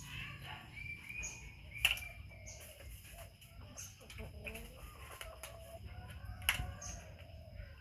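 Short, scattered animal calls mixed with sharp clicks and knocks, the two loudest knocks about two seconds in and near the end.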